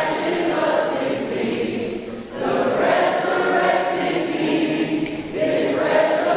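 A group of voices singing a worship song together, with short breaks between phrases about two seconds and about five seconds in.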